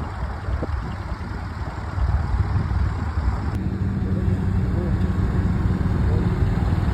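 Strong wind buffeting the microphone in a gusty, uneven rumble, with an engine running steadily underneath it through the middle of the stretch.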